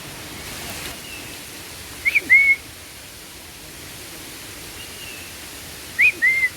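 A person whistling a two-note imitation of a bird call twice, each a short upward note followed by a longer arched one, mimicking a bird. A bird answers with a fainter, falling whistle before each. Steady rushing of a stream lies underneath.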